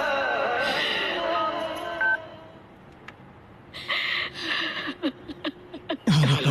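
Film background music fading out over the first two seconds, with a few short electronic beeps. After a quiet gap, from about four seconds in, there are bursts of noise and sharp clicks.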